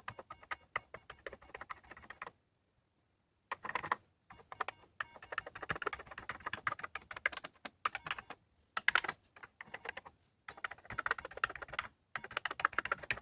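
Keys of an Atari 65XE's keyboard pressed one after another in quick runs of clicks, with two short pauses, during a key-by-key keyboard test.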